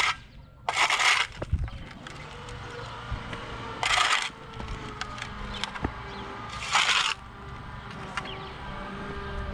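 Steel shovel blade scraping across asphalt and pushing up clods of soil, three scrapes of about half a second each: near the start, about four seconds in, and about seven seconds in.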